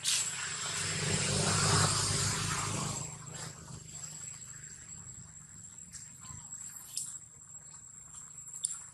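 A steady high-pitched insect drone runs throughout. Over the first three seconds a louder, harsh noisy sound rises and falls away, and a couple of short clicks come later.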